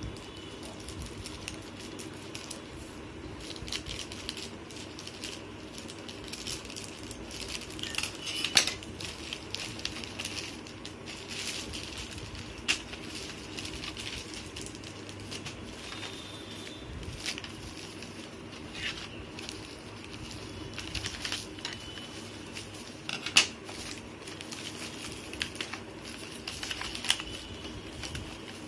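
Plastic packaging being cut and unwrapped by hand: a courier bag and bubble wrap crinkling and rustling, with scissors snipping and irregular clicks and taps, a few of them sharper.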